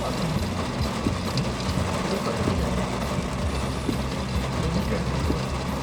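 Car driving, heard from inside the cabin: a steady low engine hum with road and tyre noise.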